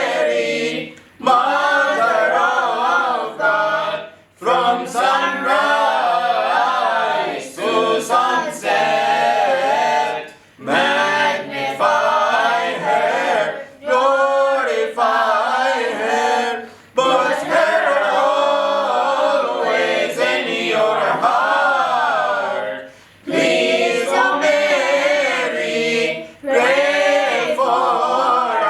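Mixed choir of men's, women's and children's voices singing a Coptic Orthodox hymn a cappella, in phrases a few seconds long with short breaks for breath between them.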